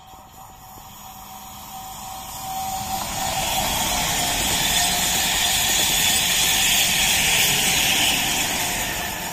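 PKP Intercity ED161 Dart electric multiple unit passing close by at speed: the rush of wheels on rail and air swells as it approaches about three seconds in, stays loud while the cars go past, and begins to fade near the end, with a steady whine running through it.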